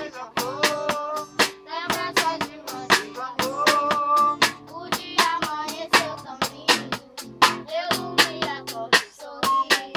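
Children singing a song over sustained instrumental chords, with steady sharp percussive hits, hand claps or drums, keeping the beat. The voices stop near the end while the instruments carry on.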